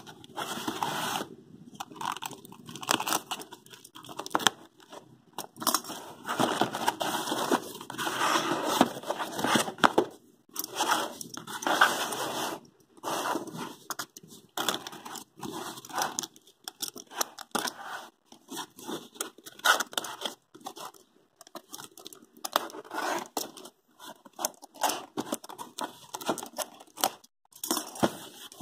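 Packing tape being cut and torn off a cardboard shipping box by hand, in irregular bursts with short pauses between.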